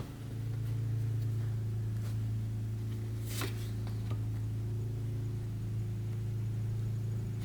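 A steady low hum from a running machine, with one faint short rustle about three and a half seconds in.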